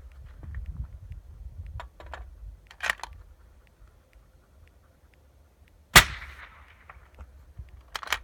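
A single suppressed rifle shot from a 6.5 Creedmoor fired through a 9-inch .30-calibre Thunder Beast Ultra suppressor, about six seconds in, with a short tail of echo. The meter puts it at about 135.5 dB. A few short clicks come in the seconds before it and just after.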